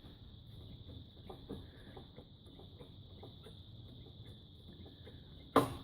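Motorcycle front brake lever being pumped after a pad change: faint irregular clicks as the pistons take up the slack against the new pads, then one sharp clack near the end. A faint steady high whine runs underneath.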